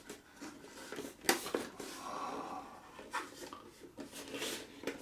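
Handling noises from a plastic role-play helmet being turned over in the hands: a few light knocks and taps with soft rubbing between them.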